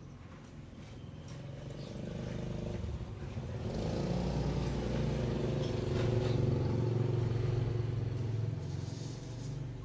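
A motor vehicle's engine passing by, its low hum growing louder over several seconds and then fading away.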